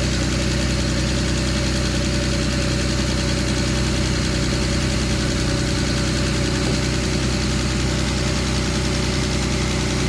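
2008 Land Rover LR2's 3.2-litre straight-six idling steadily with the air conditioning on, heard from the open engine bay.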